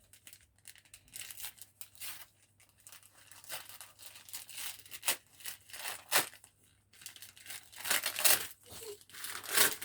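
Wrapping paper being torn and crinkled while a present is unwrapped: irregular rustling and ripping, loudest in a few sharp tears about six, eight and nearly ten seconds in.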